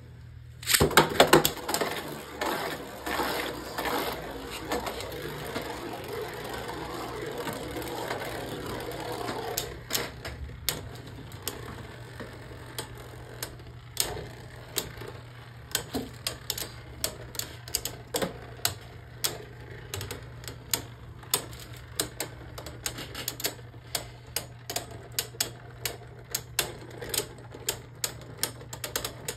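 Two Beyblade Burst spinning tops, Mirage Fafnir and Black Chozy Achilles, launched into a plastic stadium about a second in. They whir and scrape as they circle and clash for several seconds, then settle into a long run of sharp separate clicks and knocks.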